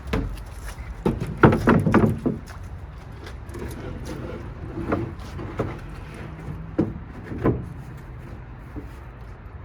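A wooden lid section being set onto a homemade plywood truck-bed toolbox: a cluster of knocks and scrapes about a second in, then single wooden knocks every second or so as it is seated.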